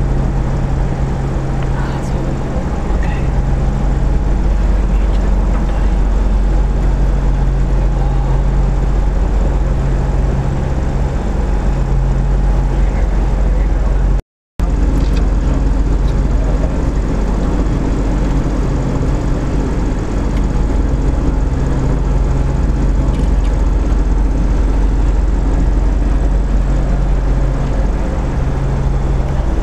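Steady drone of the Zeppelin NT airship's piston engines and propellers heard inside the gondola, an even low hum under cabin noise. The audio cuts out for a split second about halfway through.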